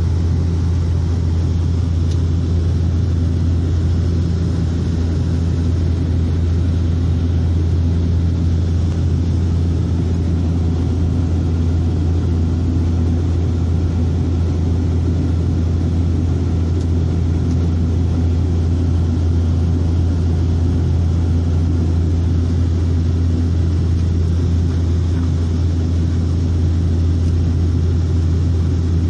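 Inside the cabin of a high-wing turboprop airliner in flight: a loud, steady, deep propeller drone with overtones over the rush of engine and air noise.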